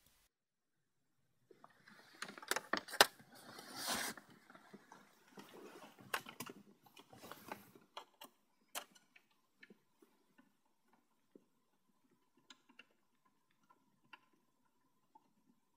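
Handling noise of a serial cable plug being fitted to a PC's serial port: rustling and a run of clicks for several seconds, then only a few sparse faint clicks over a faint steady high whine.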